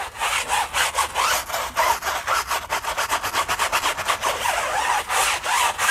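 Hand brush scrubbing a foam-covered rubber tire sidewall in quick back-and-forth strokes, several a second, working tire cleaner into the browned rubber.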